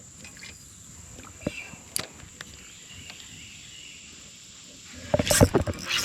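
Steady high-pitched insect drone, typical of crickets or cicadas, with a few scattered faint clicks. Near the end comes a loud burst of rapid clicks and knocks.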